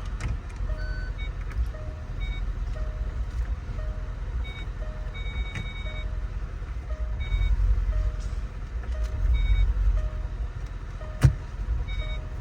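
Range Rover supercharged V8 idling with the oil filler cap removed, nearly smooth but still stumbling slightly from a misfire. A short beep repeats about every two-thirds of a second throughout, and a single sharp click comes near the end.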